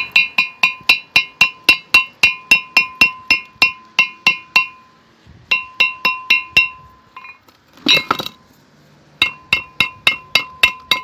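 Rapid hammer blows, about three a second, on a removed cast-iron brake disc, each blow making the disc ring like a bell. The blows come in runs with two short pauses and a brief scrape in the second pause. They are knocking off the rust lip on the disc edge that the owner blames for his grinding, squealing brakes.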